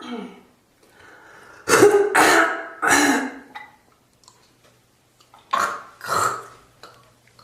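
A person in a coughing fit: a run of three harsh coughs about two seconds in, then two more about six seconds in.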